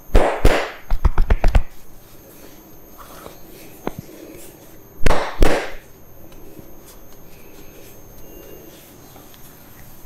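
Hand slaps and claps of a barber's head massage: two heavy slaps, a quick run of about seven sharp slaps just after a second in, then two more heavy slaps about five seconds in.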